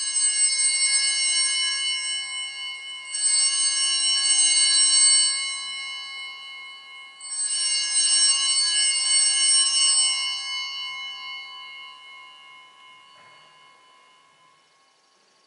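Altar bells, a cluster of small hand bells, shaken in three rings at the elevation of the chalice after the consecration: the first is already sounding, the others come about three and seven seconds in. Each ring is a bright jangle that rings on and fades, and the last dies away slowly.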